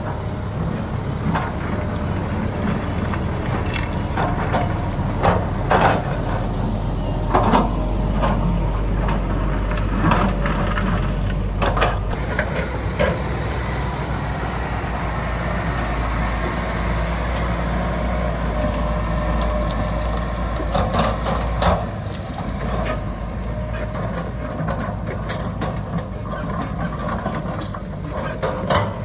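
Heavy diesel construction machinery running steadily, with scattered metallic clanks and knocks from the work. The engine drone eases slightly about two-thirds of the way through.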